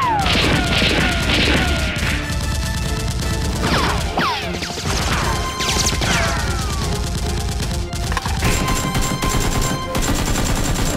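Gunfire sound effects: bursts of shots mixed with repeated falling whistling whizzes. Underneath is background music with a steady low beat.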